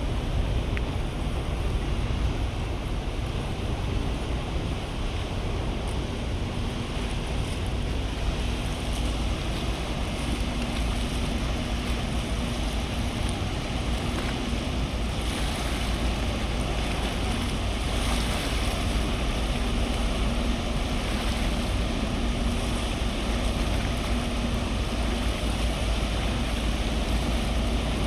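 Wind buffeting the microphone and waves washing at the shore of a sea strait, with a faint low steady hum in the background.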